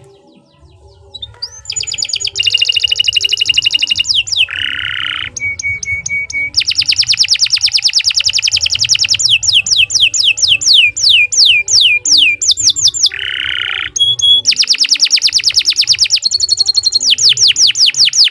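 Domestic canary singing a long continuous song of very fast trills and rolls, in the middle a run of quick down-slurred whistled notes. Twice it breaks into a short, lower, buzzy phrase.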